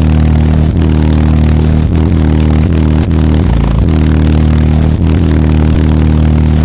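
Nine CT Sounds EXO subwoofers, powered by three B2 Audio M1 amplifiers, playing bass-heavy music very loud. Deep, sustained bass notes carry short beats about once a second, and the note changes briefly near the middle.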